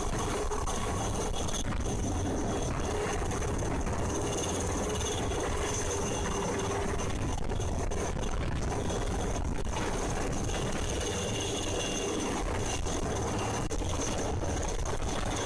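An engine running steadily, with a constant hum and no pauses or changes in speed.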